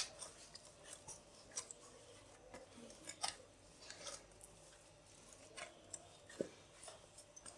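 Soft, sticky bhatura dough being kneaded by hand: faint, irregular squishing and light tapping sounds.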